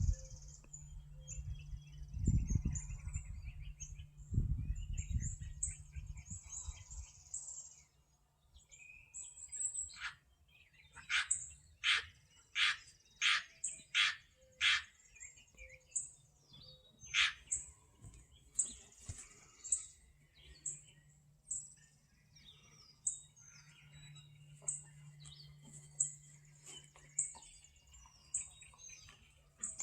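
Small birds chirping, with many short high calls and a run of about eight loud, sharp chirps about two a second near the middle. A few low thumps sound in the first few seconds.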